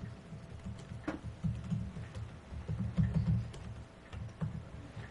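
Laptop keyboard typing: irregular key clicks, with low thuds from the strokes carried through the desk.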